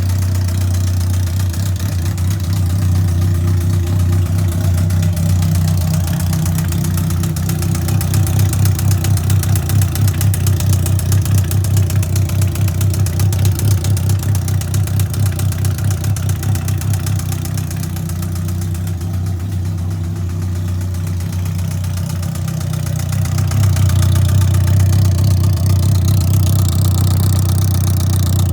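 2003 Yamaha R1 inline-four engine running near idle with a fast, steady knocking from the top of the engine. It swells louder around the middle and again near the end. The owner takes the knock for a sign that the engine needs a rebuild.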